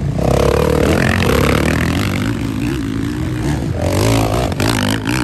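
Motocross dirt bike engines racing around a dirt track, their pitch rising and falling repeatedly as the riders rev and shift.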